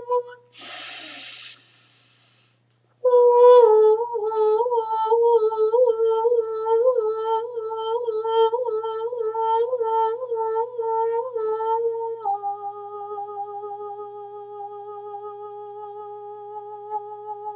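A woman's voice toning wordlessly: a sharp breath in near the start, then a high sustained note that wavers up and down about twice a second, stepping down about twelve seconds in to a lower, steady held note.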